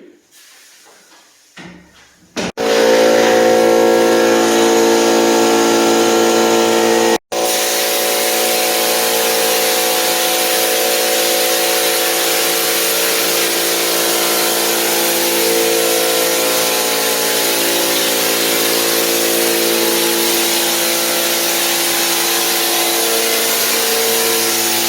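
Drywall texture hopper gun spraying the ceiling, driven by an air compressor. A steady hiss of air and texture mix sits over the compressor's motor tones. It starts about two and a half seconds in and drops out for an instant about seven seconds in.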